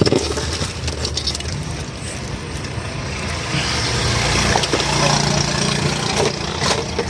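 Steady vehicle and engine noise of traffic, with an engine hum that swells about halfway through, a few sharp clicks, and faint voices.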